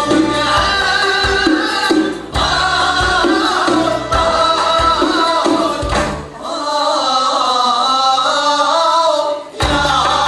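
Uzbek folk ensemble playing live: doira frame drums beat a steady rhythm under long-necked lutes, with a woman singing and a choir. The drums drop out about six seconds in, leaving only the melody and voices, and come back in near the end.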